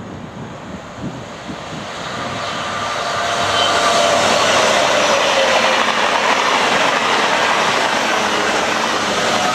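TGV Duplex double-deck high-speed train passing close by. Its running noise swells over the first few seconds and then stays loud and steady, with a faint whine that slowly falls in pitch.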